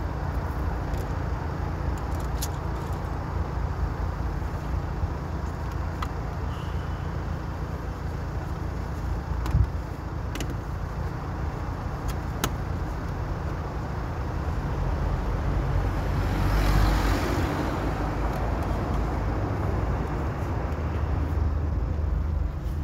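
City traffic noise: a steady rumble of cars and engines, with a short knock near the middle and a louder whoosh of noise about three-quarters of the way through.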